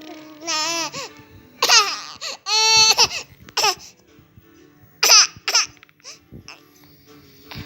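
Babies' high-pitched vocal squeals and laughing in about five short bursts, the last about five seconds in, over faint background music.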